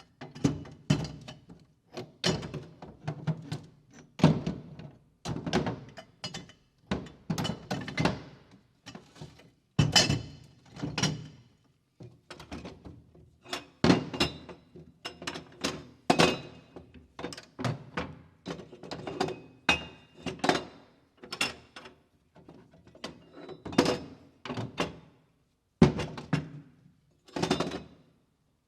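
Hand tools and equipment being picked up, moved and set down: a rapid series of thunks, knocks and metallic clatters, some with a brief ring, in clusters with short pauses between.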